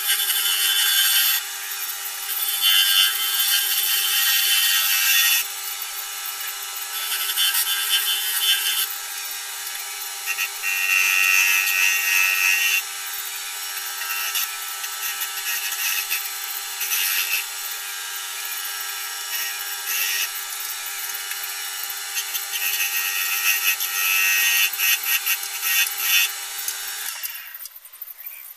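Wood lathe running with a steady hum while a hand-held turning tool cuts a celery wood pen blank, the cutting noise swelling and easing in stretches of a second or more. The lathe stops near the end.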